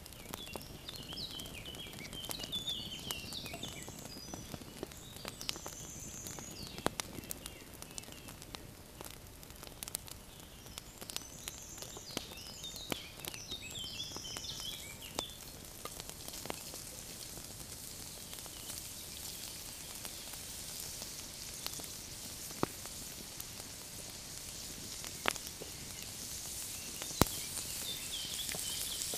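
Food sizzling in a frying pan set on an open campfire, with sharp pops and crackles throughout; the sizzle grows louder over the last few seconds as more food goes into the pan.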